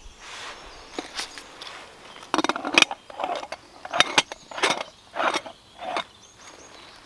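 A foil-lined coffee bag crinkling in a run of short rustles as it is handled and folded shut.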